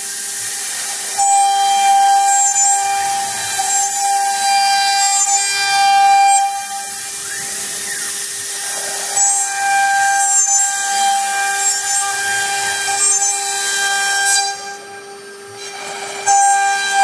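Water-cooled spindle of a 1325 CNC router running with a steady whine as its bit routes grooves into a wooden board, with a hiss from the cutting. The sound drops away briefly about fifteen seconds in, then returns.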